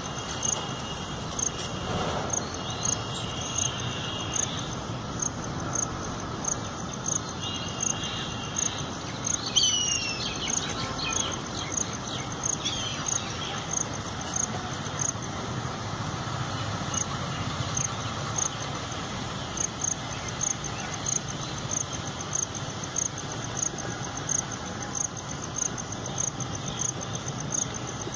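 An insect, likely a cricket, chirping in a steady, evenly spaced rhythm of a few high chirps a second, with birds calling over it in the first half.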